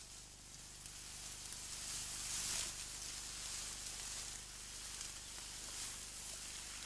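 Tall grass swishing and rustling against bodies and legs as people push through it on foot, rising and falling in waves, loudest about midway.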